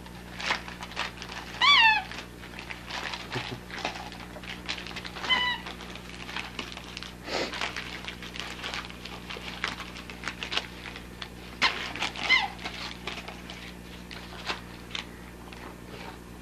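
Crinkling and tearing of Christmas wrapping paper as a dog paws and noses into a wrapped present. Three short, high-pitched cries come through, the first and last falling in pitch.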